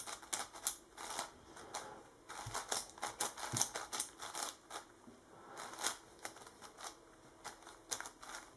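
YongJun MGC 7x7 magnetic speed cube being turned by hand: quick irregular clusters of sharp plastic clicks as its layers turn and snap into place.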